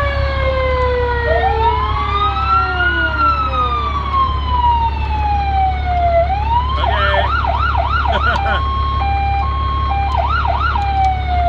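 Fire apparatus electronic siren, sounded through its speaker, cycling through modes: a slow wail rising and falling, then about halfway through a fast yelp, a two-tone hi-lo, a brief yelp again, and a falling wail near the end. A steady low hum runs underneath.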